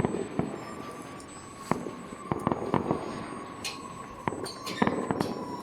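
Fireworks and firecrackers going off across the city, a scattered run of irregular bangs and pops, some close and sharp, others distant and soft.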